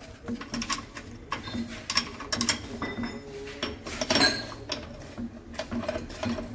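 Light metallic clicks and knocks of a rebuilt differential's crown wheel and pinion being rocked back and forth by hand, the gear teeth tapping through a slight, normal amount of backlash. Irregular clinks, with a louder cluster about four seconds in.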